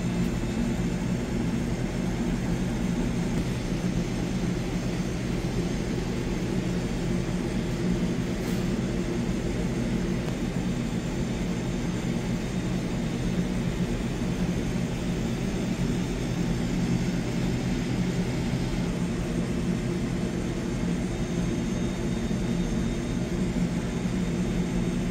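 Steady low drone of commercial kitchen machinery running, an even fan-like hum with no breaks.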